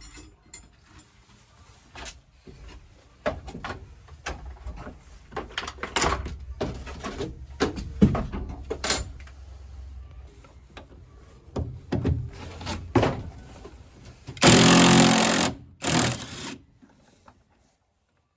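Tools knocking and clanking on metal during car repair work, then a power tool running in two short bursts near the end.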